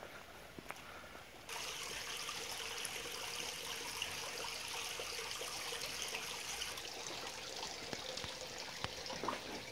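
Mineral spring water running from a small metal spout into a stone basin, a steady trickle that starts suddenly about a second and a half in.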